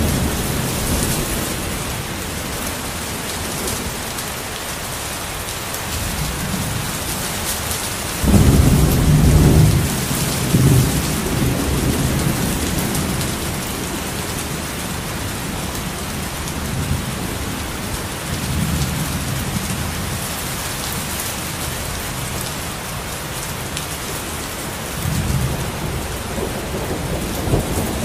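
Thunderstorm: steady heavy rain with rolling thunder. A loud thunderclap about eight seconds in rumbles on for about two seconds, with a second, shorter crack soon after and softer rumbles later.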